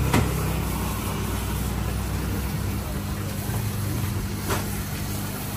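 Steady low machine hum of shop equipment, such as the refrigerated fish counters and live seafood tanks, with a brief knock at the start and another about four and a half seconds in.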